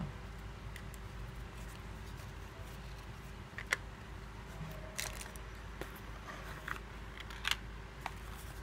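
A few short sharp clicks and taps of plastic being handled as the back cover of a JioFi pocket hotspot is pressed back on, then the cardboard box is handled, over a steady low background hum.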